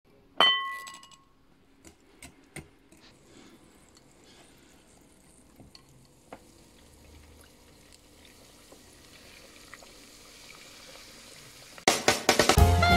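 A single sharp, ringing clink against a glass mixing bowl, followed by a few soft clicks and quiet stirring and handling of batter. Near the end, upbeat music with drums cuts in loudly.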